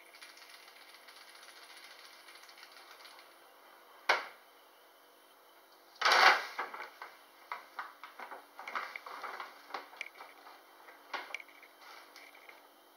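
Stiff brown paper bag crinkling and crackling as a Siberian cat jumps into it, loudest about six seconds in, then a run of irregular crackles as the cat shifts about inside. A single sharp crinkle about four seconds in, and soft rustling at the start.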